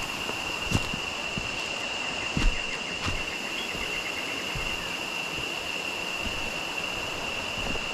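Jungle ambience: a steady high-pitched insect drone over an even rushing hiss of river water. A faint rapid trill sounds from about two seconds in to about five seconds in, and a couple of soft knocks come near the start.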